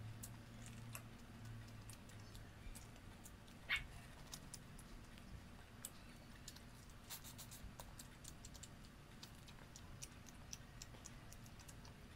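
Faint eating sounds: scattered small clicks and crackles of shrimp shells being peeled and food being chewed, with one sharper crack about four seconds in.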